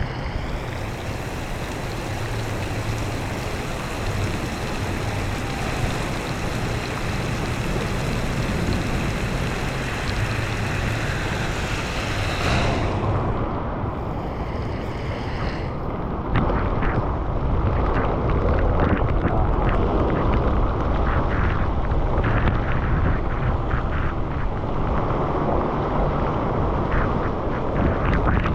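Wind buffeting the microphone and wet road noise while riding a bicycle in heavy rain. It makes a steady rushing sound. About halfway through, the high hiss drops away, and a few seconds later a louder low rumble with scattered crackles comes in.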